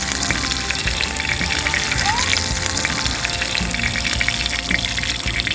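Pork belly sizzling and crackling as it grills, over background music.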